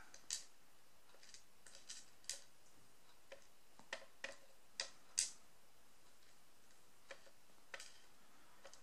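Sparse, irregular light metal clicks as the small pins and spools taken out of a padlock core are tapped and nudged into a row on a work surface.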